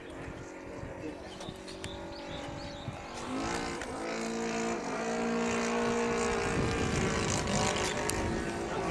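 A radio-controlled Super Decathlon's Saito FG-40 single-cylinder four-stroke petrol engine running in flight, growing louder as the plane comes overhead. Its pitch dips briefly twice.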